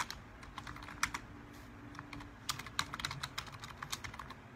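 Typing on a computer keyboard: irregular keystrokes, some in quick runs.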